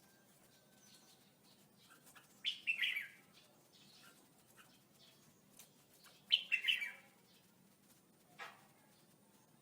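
Red-whiskered bulbul singing: two short, bright song phrases about four seconds apart, then a fainter single note near the end.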